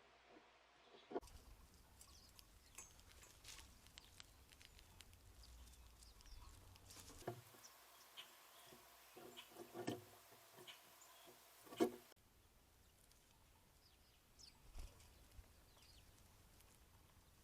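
Quiet backyard ambience: faint, scattered small bird chirps and a series of light taps and clicks, the sharpest about twelve seconds in. The background hiss changes abruptly about a second in and again near twelve seconds.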